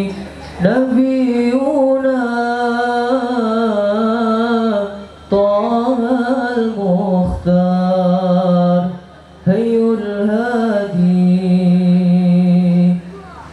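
A single voice chanting an Islamic devotional song (shalawat) in long, held, ornamented phrases, breaking for breath about every four seconds.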